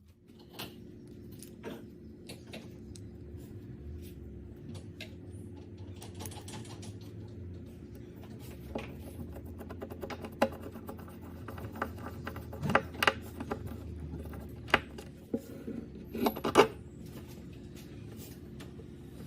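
Workshop handling sounds: scattered clicks and knocks over a steady low hum, with the sharpest knocks clustered in the second half.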